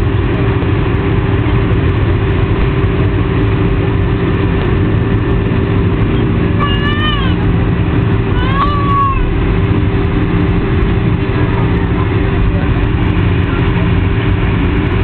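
Airliner cabin noise with the jet engines running steadily and a steady hum underneath. Two short, high, voice-like cries with bending pitch sound about seven and about eight and a half seconds in.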